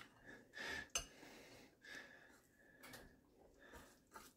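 Faint scraping of a fork pulling cooked spaghetti squash strands out of the shell into a glass bowl, in a few soft strokes, with one light click about a second in.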